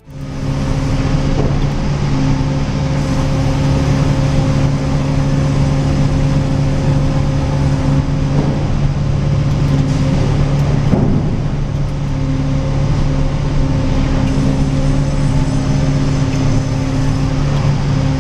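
Heavy machinery running steadily, a constant low hum over a wash of mechanical noise, with a brief louder surge about eleven seconds in.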